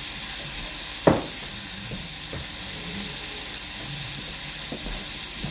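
Pork and sliced onions sizzling steadily in a stainless steel wok, with one sharp knock about a second in.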